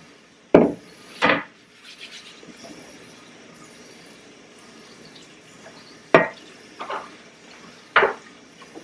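Dishes and kitchen containers being handled while hand-washing at a sink, knocking together in sharp clatters: two near the start and three more in the last few seconds.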